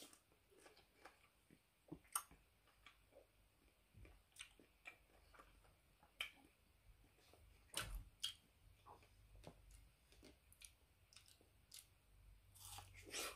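Faint chewing and small wet mouth clicks of someone eating mango slices, with scattered soft ticks and a sharper click about two seconds in.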